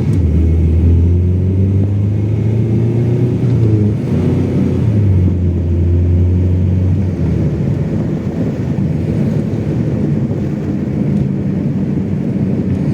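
Audi 80 B4's 2-litre four-cylinder petrol engine running under way, heard from inside the cabin, with road noise. The engine note drops briefly about four seconds in and comes back. After about seven seconds it gives way to a rougher, noisier sound.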